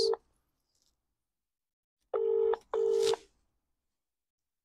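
British telephone ringing tone from an outgoing call waiting to be answered. It rings as a double ring, two short beeps of one steady tone a moment apart: the end of one double ring just at the start, and a full double ring about two seconds in.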